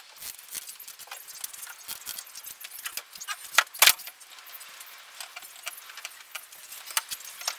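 Quick-release trigger bar clamps being ratcheted tight on pallet-wood strips and handled: a run of irregular light clicks and clacks, with two sharp, louder knocks a little past the middle.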